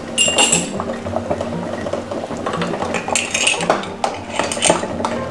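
Water at a rolling boil bubbling in a large pot. A metal canning tool clinks against the pot a few times, with sharper ringing clinks near the start and about three seconds in.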